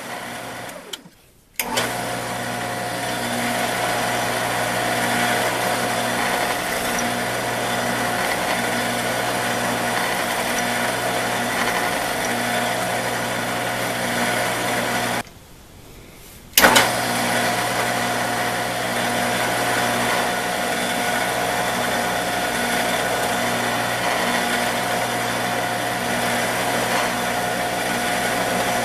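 Drill press motor running steadily while drilling pilot holes for small wood screws in an MDF block. The sound drops out twice, about a second in and about halfway through, each time coming back with a sharp click.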